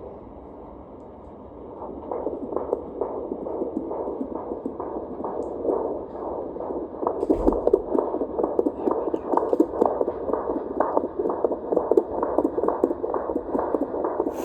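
Unborn baby's heartbeat at 38 weeks of pregnancy, heard through a fetal Doppler monitor's speaker as a fast, even pulse. It is faint for the first couple of seconds, then steadier, and louder after a single knock about seven seconds in.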